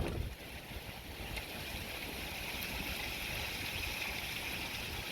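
Steady rushing outdoor noise, like running water, with a brief thump or rustle right at the start.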